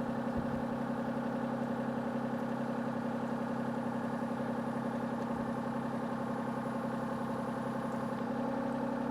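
Excavator's diesel engine running steadily at a raised throttle setting, with an even, unchanging hum.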